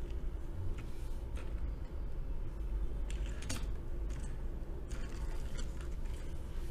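Die-cast metal toy jeep handled and rolled across a tabletop by hand: a few light clicks and rustles over a steady low hum.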